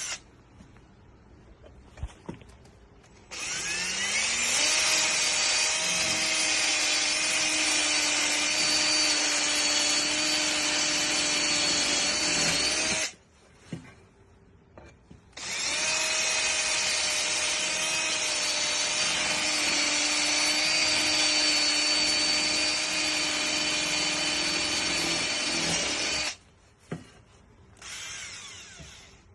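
Electric drill with a 3/16-inch bit boring holes in an electric unicycle's metal motor hub. It makes two long runs of about ten seconds each: each begins with a rising whine as the drill spins up and then holds a steady pitch, stopping abruptly. A brief, quieter run follows near the end.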